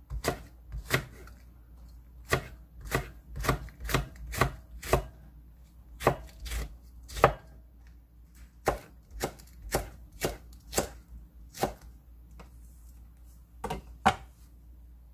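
Chef's knife slicing cheongyang and red chili peppers on a wooden cutting board: sharp knocks of the blade on the board, about two a second, with a few short pauses.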